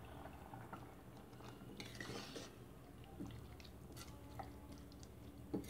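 Faint scraping and light clicks of a steel spoon stirring thick beef curry in a pressure cooker pot.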